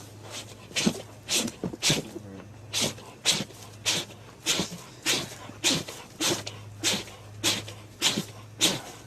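An animal sneezing over and over in a quick, even series, about two sneezes a second.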